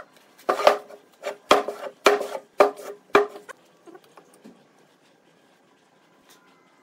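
A heavy hardwood block knocking against a wooden workbench as it is set down and handled: about seven sharp, slightly ringing wooden knocks over about three seconds, then only faint light taps and rubbing.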